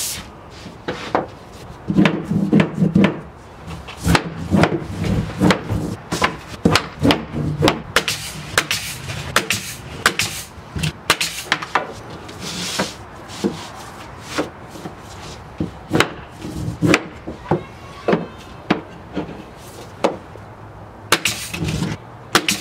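A mallet knocking repeatedly on a scrap of bamboo flooring used as a beater board, driving soft bamboo tongue-and-groove boards tight against the previous row. Many sharp knocks come in quick, irregular runs.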